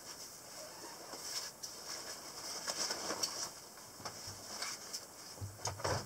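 Rustling and small clicks of a nylon hydration backpack being handled, with a few soft thumps near the end.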